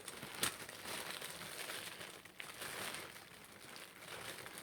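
Plastic packaging crinkling as it is handled and opened, with a sharp click about half a second in and a smaller one near the middle.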